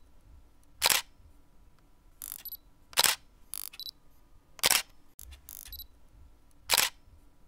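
Camera shutter clicks: four sharp clicks about two seconds apart, with fainter high whirring sounds between them.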